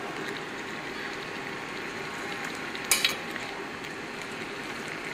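Steady simmering hiss of cooking pans on the stove, with one sharp clink of a ladle against metal cookware about three seconds in, as boiled taro greens are scooped into a steel colander.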